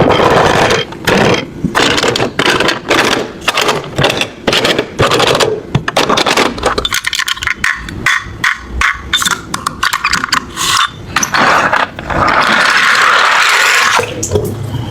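Die-cast Tomica toy cars clattering and scraping, with many quick sharp knocks of metal on hard plastic, then a steady rolling rasp for the last few seconds.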